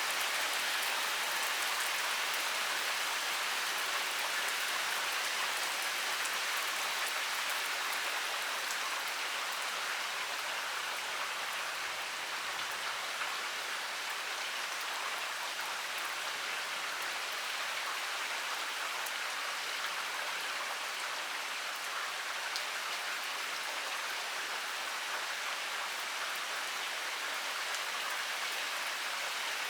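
Heavy rain pouring steadily: a dense, even hiss of falling water with scattered individual drops ticking through it.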